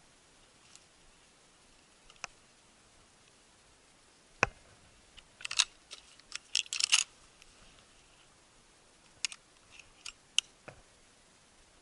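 Handling noise: scattered sharp clicks and one dull knock, with a quick run of crackling clicks and rustles about six seconds in as dry grass and weeds brush close by.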